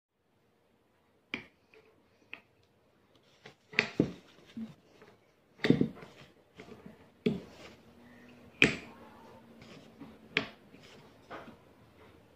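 Handling noise of a vacuum cooking pot: sharp clicks and knocks from the lid, handle and knob being handled, a dozen or so at uneven intervals, starting about a second in.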